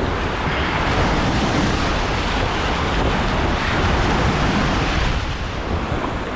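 Sea waves surging and breaking, with wind rumbling on the microphone; the wash swells through the middle and eases off a little near the end.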